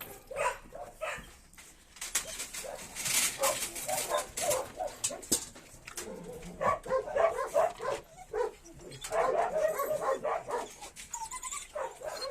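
Dogs barking and whimpering in short repeated calls, in clusters, with a burst of noise about two to three seconds in.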